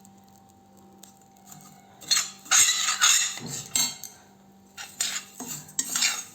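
A utensil scraping and clinking against a heavy-bottomed pan as roasted, puffed borax (suhaga) is stirred and turned. It is quiet for about two seconds, then comes a run of scraping strokes with a few sharp clicks.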